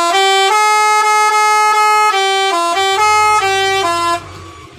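Three-trumpet telolet horn playing one of its 18 preset tunes, a melody of held three-note chords, which stops about four seconds in. A low rumble sets in underneath near the end.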